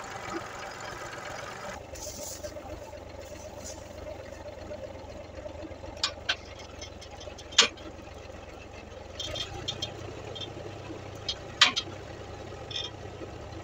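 Massey Ferguson tractor engine idling steadily. A few sharp knocks cut through it, the loudest about 7.5 and 11.5 seconds in.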